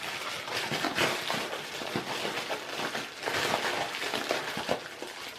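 Reel packaging being opened by hand: cardboard and paper rustling and crinkling, with many small irregular clicks and scrapes.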